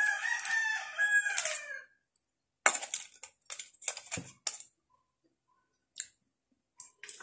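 A rooster crows once for about two seconds. Then comes a quick run of sharp clicks and clinks as a spoon and snail shells knock against a steel bowl.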